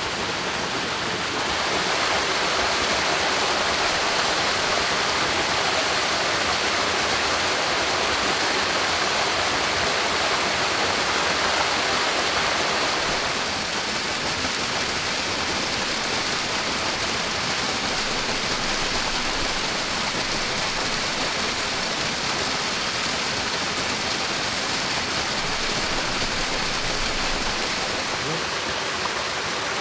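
Steady rushing of stream water, a little louder from about two seconds in and softer again about halfway through.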